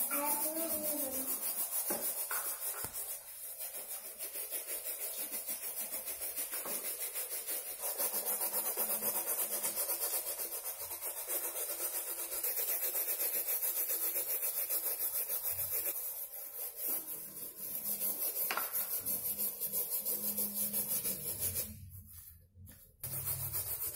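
Brushes scrubbing sneakers with soapy water: fast, continuous rasping strokes of bristles on shoe fabric and rubber, with a short pause near the end.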